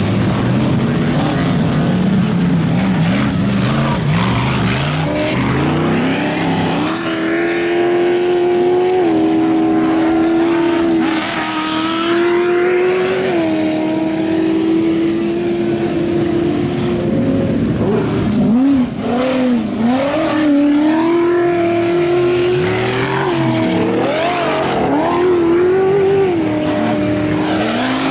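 Ultra4 race buggy engine running hard at high revs, holding a steady pitch with small step changes, then revving up and down with the throttle through the second half as the buggies pass close by.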